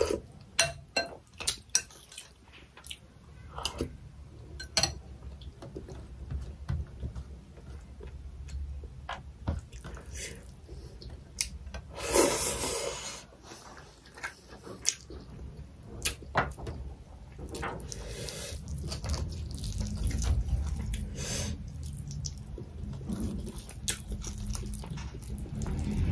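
Close-up eating sounds of someone chewing mutton and rice: wet chewing with many short sharp smacks and clicks, and a louder wet noise lasting about a second near the middle.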